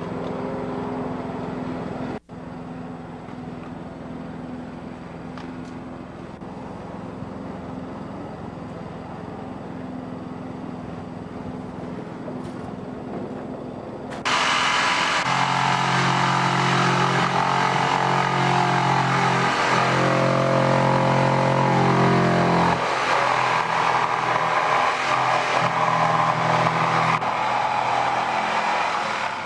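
Electric drill with a long bit starting abruptly about halfway through and running steadily and loudly while boring through house siding, its motor pitch shifting partway through as the load changes. Before it starts there is only a quieter steady background noise.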